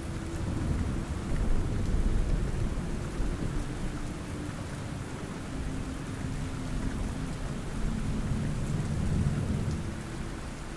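Rain falling steadily with low rolling thunder, swelling about two seconds in and again late on.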